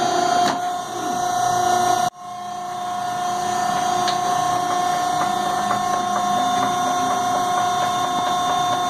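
Horizontal baler's hydraulic power unit running with a steady whine and fine rattling ticks. About two seconds in, the sound cuts out abruptly for a moment, then comes back and holds steady.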